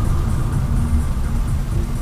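Steady low rumble of a car's engine and road noise, heard from inside a moving car.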